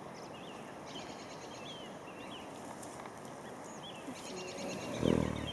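Outdoor background with small birds chirping over and over and bursts of fast high ticking. About five seconds in, a short low pitched sound, the loudest moment, cuts in briefly.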